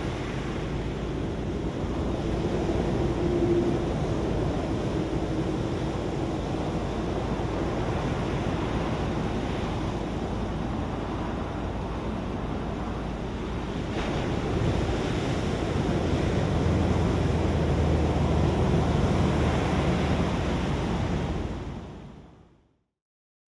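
Ocean surf breaking and washing ashore, a steady rush of water that fades out near the end.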